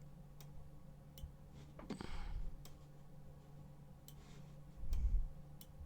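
Sparse sharp clicks at a computer, over a steady low electrical hum. A short breathy rustle comes about two seconds in, and a low thump near five seconds.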